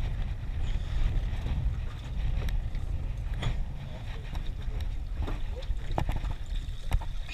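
Wind buffeting the microphone with a steady low rumble, over scattered knocks and clicks as a wet crab pot rope is hauled in hand over hand and dropped onto the deck of a small boat.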